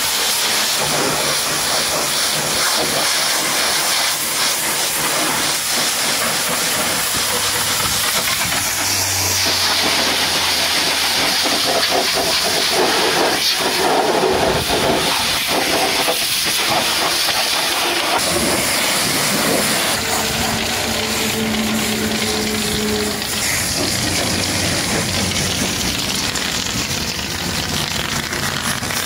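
High-pressure water jet from a pressure-washer lance hissing steadily as it blasts mud off a truck tire and steel wheel. The hiss changes in tone a few times as the spray moves over the tire, rim and wet ground.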